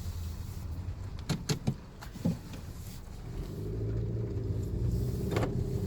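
Car sounds heard from inside the car: a few sharp clicks, then a steady low motor hum that comes in about three seconds in.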